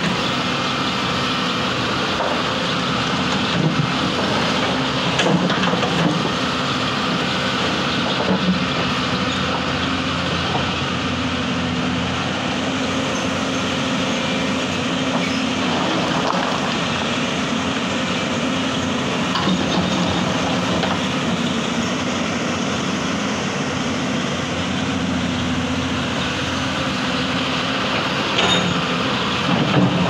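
Hyundai crawler excavator's diesel engine running steadily under working load, with occasional knocks as the bucket works through stones, a few louder near the end.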